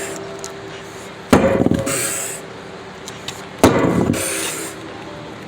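Two heavy hammer blows in demolition, a couple of seconds apart. Each strike rings briefly and is followed by a short high rustle.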